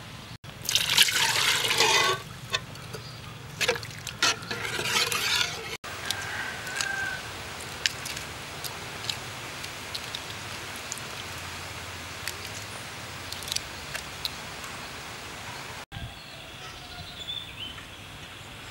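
Liquid poured into a cooking pot of sliced onions and dark sauce, in two splashing spells of a second or two each. After that come scattered small crackles of the shell of a hard-boiled egg being peeled by hand.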